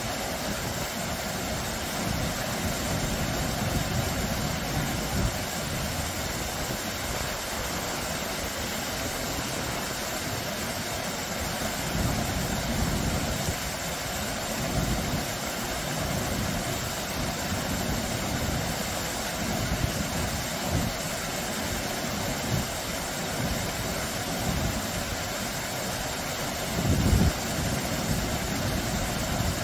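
Small low waterfall pouring over rocks into a shallow stream: a steady rush and splash of falling water. Low gusts of wind buffet the microphone on and off, the strongest near the end.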